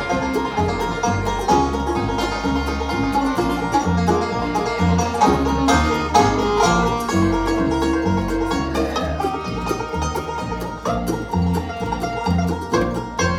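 Acoustic string band playing a bluegrass-style instrumental, banjo to the fore over guitar and a steady bass line.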